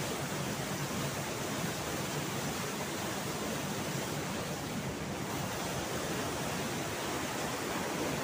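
Steady rush of fast-flowing river water at a waterfall, an even, unbroken noise.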